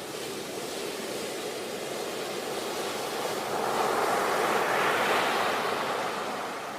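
Ocean waves breaking on a shore: a steady wash of surf that swells into a louder wave breaking about four seconds in, then recedes.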